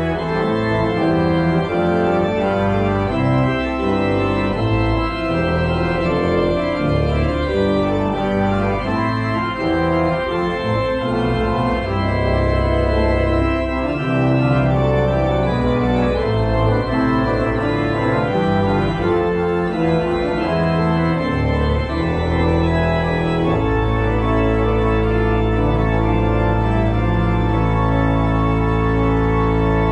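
1972 Austin pipe organ (opus 2554, an organ-reform-era three-manual instrument) playing loudly, a busy passage of fast-changing notes over deep bass. About three-quarters of the way through it settles onto one long held full chord.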